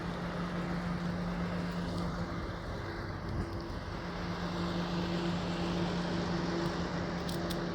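A vehicle engine idling with a steady low hum over outdoor traffic noise, with a few light clicks near the end.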